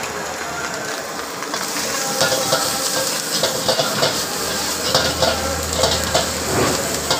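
Chicken and vegetables sizzling in a hot wok as a ladle stirs and tosses them, with repeated scraping and clanks of the ladle on the wok. The sizzle grows louder about a second and a half in.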